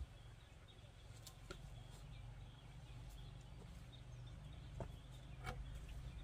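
Quiet outdoor ambience with a steady low rumble and a few faint knocks from round wooden logs being handled and shifted.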